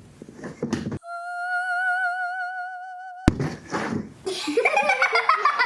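A single held sung note with an even vibrato, about two seconds long, starting about a second in and cut off with a click; then voices with a falling pitch.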